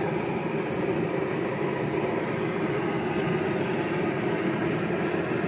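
Food deep-frying in a wok of bubbling hot oil over a gas burner: a steady sizzle and hiss.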